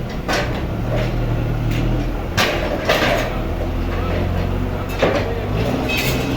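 Sawmill machinery running with a steady low engine drone, and several sharp knocks, as of wood being knocked or dropped, spread through it.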